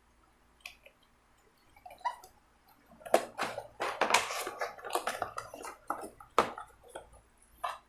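Hands handling plastic packaging and parts: irregular crinkles, rustles and clicks, sparse at first and busy through the second half.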